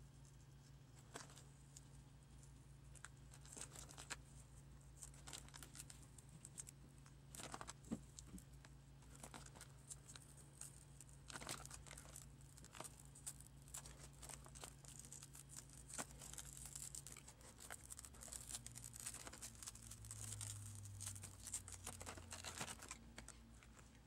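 Faint crackling, tearing and small clicks as a cracked laptop touchscreen digitizer's glass and adhesive tape are prised away from the plastic bezel, over a low steady hum.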